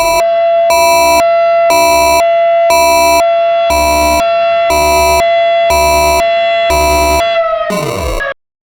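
Federal Sign & Signal Model 7 tornado siren sounding a steady tone with a regular pulse about once a second. Near the end the pitch falls, then the sound cuts off abruptly.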